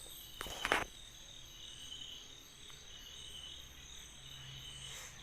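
Insects chirping in a steady, pulsing high-pitched chorus. A short burst of noise about half a second in stands out above it.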